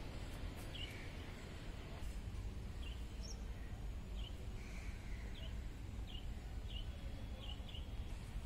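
A small bird chirping: a dozen or so short, high chirps, one every half second to second, over a low steady rumble.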